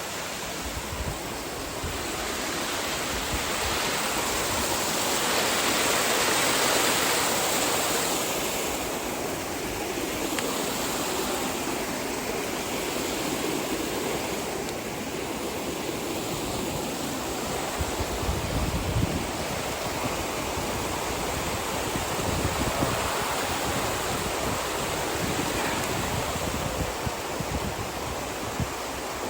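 Rushing water of a waterfall and stream cascades, a steady rush that grows louder for a few seconds about five seconds in.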